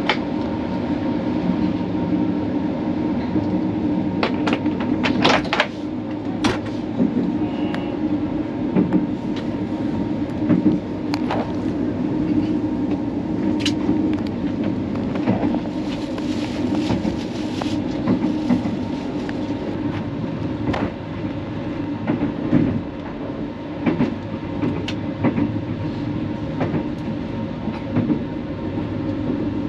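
Inside a sleeper railway carriage: the steady rumble and hum of the train running, with scattered sharp clicks and knocks.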